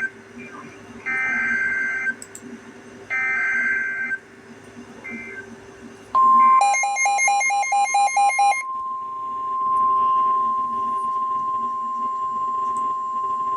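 Emergency Alert System SAME header: three short screeching digital data bursts about a second apart. About six seconds in, a steady single-pitch alert tone starts and holds, with about two seconds of rapid electronic beeping laid over its start, signalling a new warning message.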